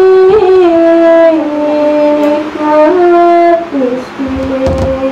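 A woman singing slow, long-held notes into a microphone, each held about a second, the melody stepping mostly downward in pitch.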